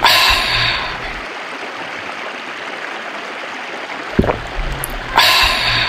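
Shallow rocky river flowing, a steady rushing hiss of water. A louder surge of hiss with a low rumble comes at the start and again near the end.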